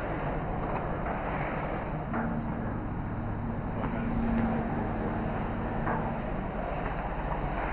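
Concrete mixer truck's diesel engine running steadily. A steady droning tone joins about two seconds in and fades out a little over a second before the end.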